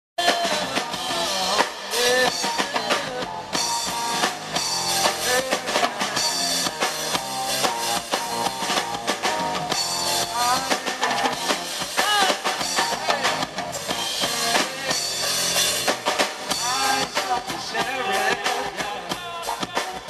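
Live reggae band playing through a PA: drum kit, electric bass and guitar, with a male voice singing over them.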